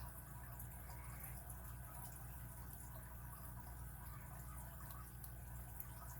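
Faint, scattered small clicks and ticks of a pick setting the pins of an Abus 41/45 five-pin padlock under a tensioner, over a steady low hum.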